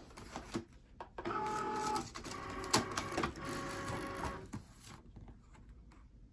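Cricut cutting machine loading the cutting mat: its motor whirs as the rollers draw the mat in and the carriage positions itself, with a sharp click partway through. The machine goes quiet about five seconds in, ready to cut.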